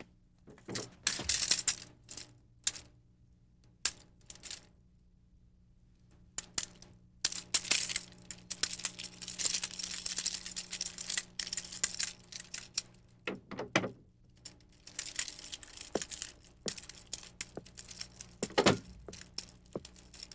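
Clinking and rattling of a manual wheelchair's metal frame and wheels as it is sat in and pushed across a wooden floor, mixed with rustling of a blanket, in irregular clusters of clicks over a faint steady hum.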